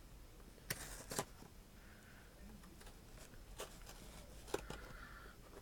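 A cardboard box being handled and cut open: faint, scattered sharp clicks and two brief scraping rustles.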